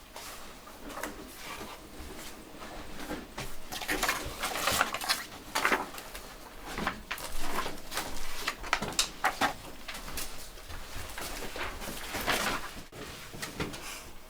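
Office background ambience: an irregular run of clicks, knocks and rustles from desk activity in a small room, such as drawers and handled objects, over a low background.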